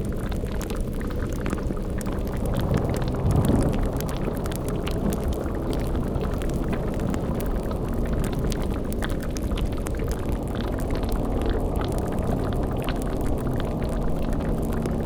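Layered spooky sound-design ambience: a low rumbling drone with steady low tones under a bubbling, boiling-cauldron texture, and fire crackling throughout. A brief swell rises about three and a half seconds in.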